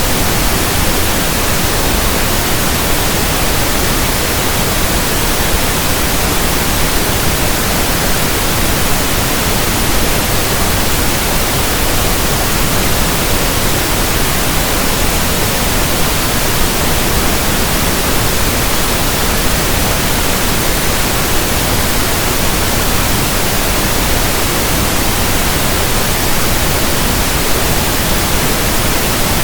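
Synthesized pink noise: a loud, steady, even hiss across all pitches that does not change.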